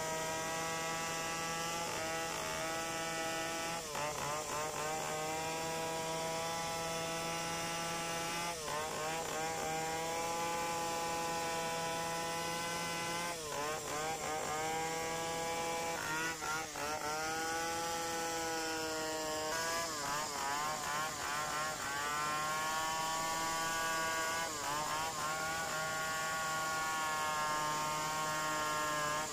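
Two-stroke Stihl chainsaw ripping a log lengthwise, running at high revs under load. Its pitch dips sharply and recovers every few seconds as the cut bogs it down.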